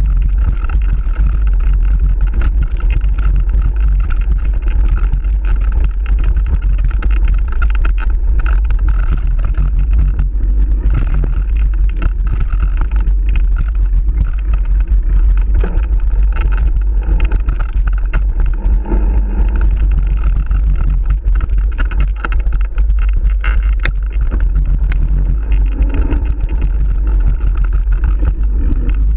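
Mountain bike ridden fast over a rough dirt trail, picked up by a camera riding along: a loud, steady low rumble of wind buffeting the microphone and the bike jolting, with scattered clicks and rattles from bumps in the ground.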